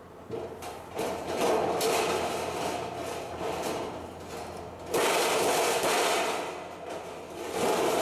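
Hand snips cutting sheet metal: rapid runs of crunching, clicking cuts in three spells, a long one near the start, another about five seconds in and a short one at the end.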